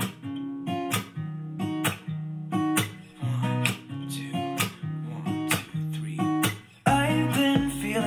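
Acoustic-guitar pop song played back through an Anker Soundcore Motion+ Bluetooth speaker in a sound test: an instrumental stretch of strummed guitar chords, about two strums a second, with no vocals.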